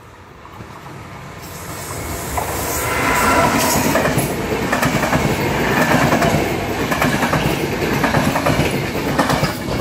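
Electric-hauled regional passenger train passing close by: the approaching locomotive grows louder over the first three seconds, then the coaches roll past with a steady rumble of wheels on rails.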